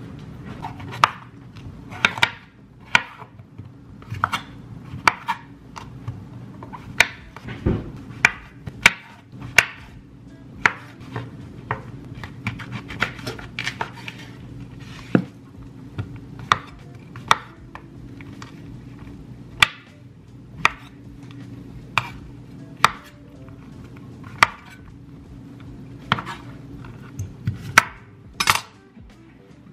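Chef's knife chopping vegetables on a wooden cutting board: irregular sharp knocks of the blade hitting the board, about one or two a second.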